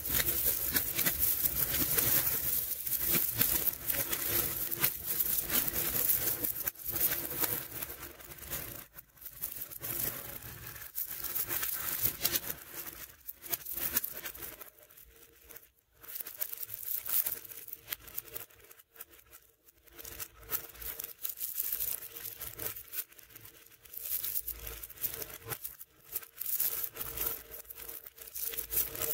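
Strands of small neodymium ball magnets clicking and rattling as they are pulled from a pile and snapped down onto a sculpture of magnet balls: a dense, fast crackling clatter, busiest in the first third and coming in shorter spurts after that.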